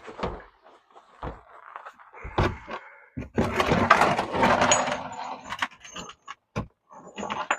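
Things being handled and moved in a garage: several knocks, then a few seconds of clattering and scraping, the loudest about halfway through, like rummaging for a container or pan.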